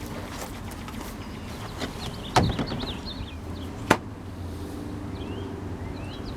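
Two sharp knocks about a second and a half apart over a steady low background hum.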